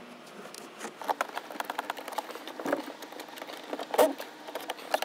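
Irregular small plastic clicks and knocks as a radio faceplate is handled and seated on its dashboard mounting bracket and a hand screwdriver works at the mount, with a louder knock about four seconds in.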